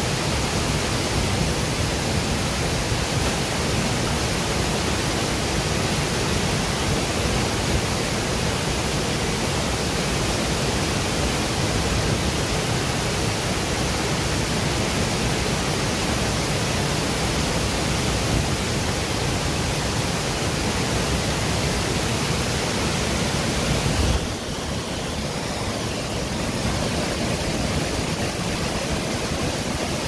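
Waterfall rushing in a steady, even roar of falling water, dipping slightly and losing some of its hiss about three-quarters of the way through.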